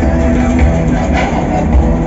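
Background music with strong bass under sustained held tones.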